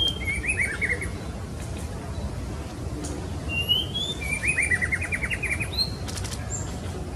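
Female white-rumped shama calling: two phrases, each a short rising note followed by a rapid run of short falling notes, the second phrase longer, about halfway through. A steady low hum underlies it, and a brief clatter of clicks comes near the end.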